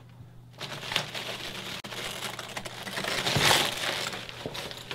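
Plastic shrink-wrap on a case of bottled water crinkling and rustling as the case is handled and carried, with a few light knocks; loudest about three and a half seconds in.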